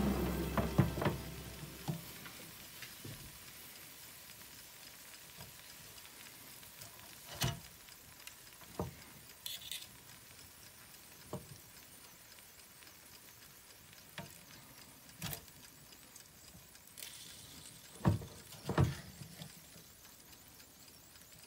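Metal fork and knife tapping and clicking against pork rib ends and the air fryer's basket, a few scattered taps with the loudest pair near the end, over faint sizzling from the just-cooked meat. In the first couple of seconds the fryer's fan is winding down and fading.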